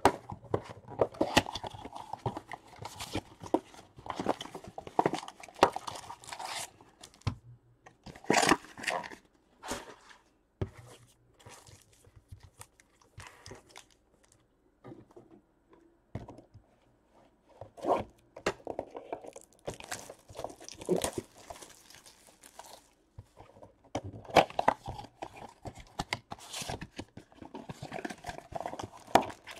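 Baseball-card packs being torn open and the cards handled: crinkly wrapper tearing and rustling in irregular bursts, with short pauses between.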